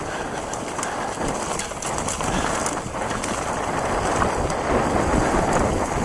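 Mountain bike riding fast down a rough dirt trail: wind rushing over the microphone and tyres rolling over dry leaves, with the bike rattling and knocking over bumps.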